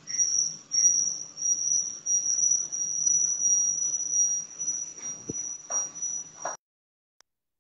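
A high, thin whistling tone, first in short pulses about twice a second, then held steady for several seconds before it cuts off suddenly. A soft low thump comes about five seconds in.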